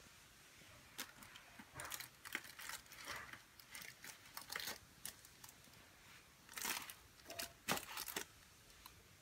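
Thin plastic bag crinkling and rustling in irregular bursts as a kitten plays with it.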